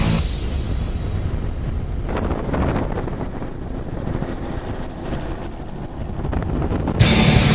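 Engine noise: a steady low rumble with no clear pitch, from a vehicle passing or running. Loud rock music cuts back in near the end.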